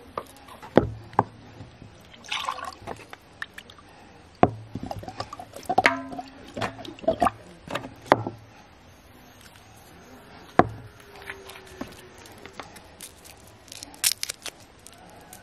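Handling sounds of food preparation on a wooden table: a string of sharp, separate knocks from a wooden mortar and other items being picked up and set down, with short scrapes and rustles between them. Near the end comes a quick run of light crackling clicks as a garlic clove is peeled.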